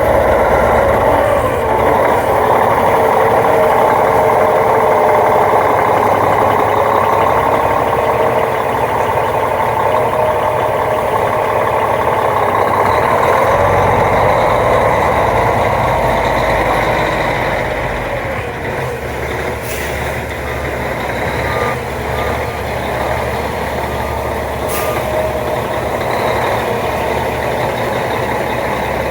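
2003 Kenworth T800 truck's diesel engine running loud and steady going down the road, easing off somewhat partway through.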